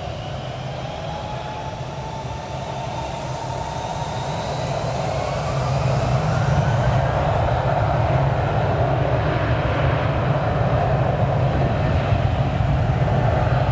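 Airbus A319's two CFM56 turbofan engines whining as it taxis. The whine rises in pitch and grows louder over the first six seconds, then holds steady over a low rumble.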